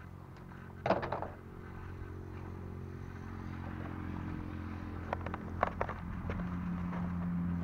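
Knocks and clicks of a model airplane being handled on the ground, heard through its onboard camera, over a steady low hum that slowly grows louder. The loudest knock comes about a second in, with a few quick clicks later on.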